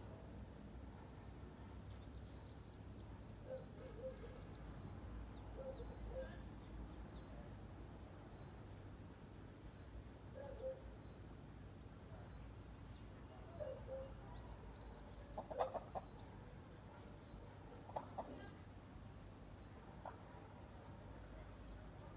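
Mother hen giving soft, low clucks in short groups of two or three every few seconds, with a few sharper, louder sounds about two-thirds of the way through. A steady high-pitched whine runs underneath.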